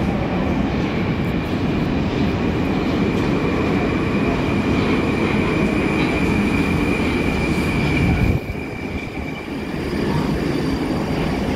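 Moscow Metro 81-775/776/777 train arriving at the platform: steady running rumble with a high whine over it. The whine and much of the noise cut off suddenly about eight seconds in, leaving a quieter rumble.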